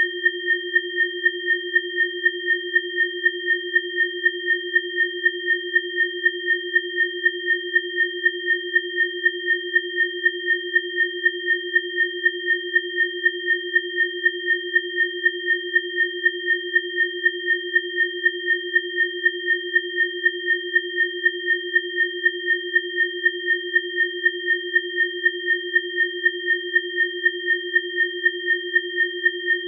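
Electronically generated sine tones sounding steadily: a low tone with two higher ones above it. The low and middle tones pulse in a fast, even rhythm, several times a second. This is a synthetic 'biofrequency' tone track.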